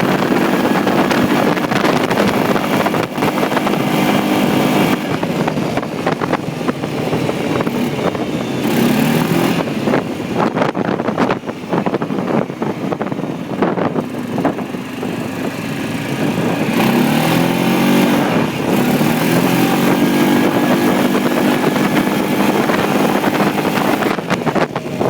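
1997 Kawasaki Prairie 400's single-cylinder four-stroke engine running under way, its pitch rising and falling several times as the throttle is opened and eased off. Wind buffets the microphone throughout.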